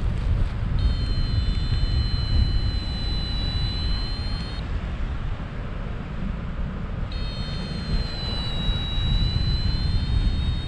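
Airflow rushing over the microphone of a paraglider in flight, a steady low rumble. A steady high tone sounds twice over it, each time for about three and a half seconds, starting and stopping abruptly with a slight dip in pitch.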